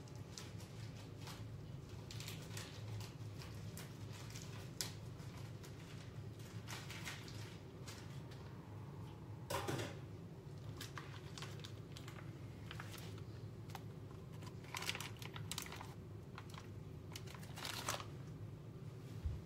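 Plastic packaging of raw chicken breasts crinkling and tearing as it is cut open, with scattered rustles and light knocks, loudest about ten seconds in and again a few seconds before the end, over a steady low hum.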